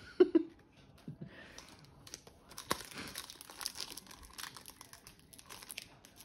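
Foil Pokémon booster pack wrapper crinkling and tearing as it is opened by hand, with sharp crackles, from about two and a half seconds in.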